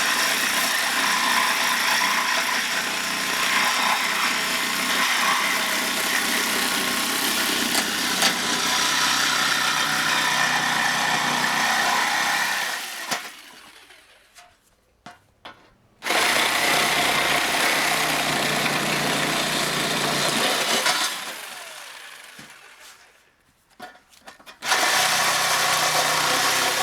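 Reciprocating saw (sawzall) with a metal blade cutting a galvanized steel post insert, running loudly and steadily. It winds down and stops about 13 seconds in, starts again suddenly about 16 seconds in, stops again about 21 seconds in, and starts back up near the end.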